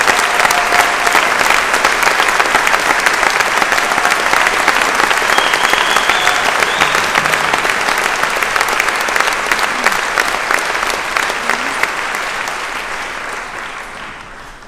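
Large audience applauding, a dense steady clatter of many hands clapping that fades away over the last couple of seconds.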